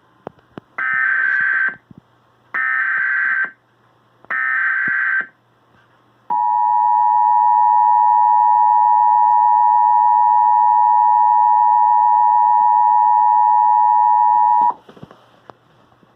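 Emergency Alert System tones: three short bursts of warbling data tones (the SAME header), then the EAS two-tone attention signal, a steady dual-tone note held about eight seconds that cuts off sharply.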